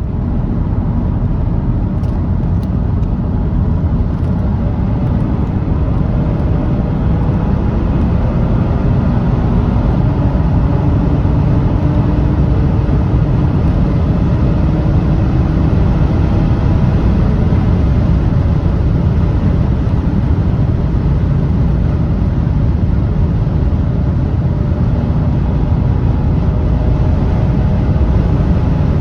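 Audi S4's 3.0-litre supercharged V6 accelerating hard at high speed. A loud, steady rush of road and wind noise dominates, with a faint engine tone climbing slowly through it.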